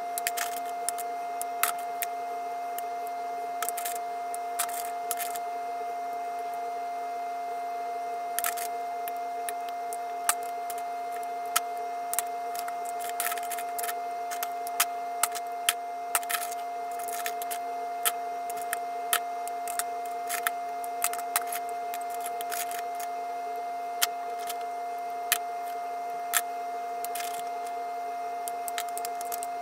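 A steady machine hum with a constant high whine, overlaid by irregular sharp clicks and taps every second or so.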